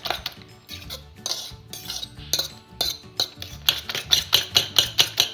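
A fork beating eggs in a bowl: quick, regular clinks of the fork against the bowl at about four strokes a second. They thin out and soften early on, then pick up again strongly almost four seconds in, over quiet background music.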